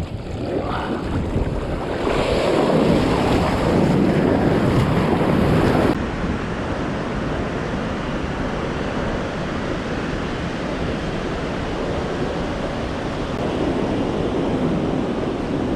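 Ocean surf breaking and washing up a sandy beach, with wind buffeting the microphone. It is louder and rougher for the first six seconds, then settles abruptly to a steadier wash of surf.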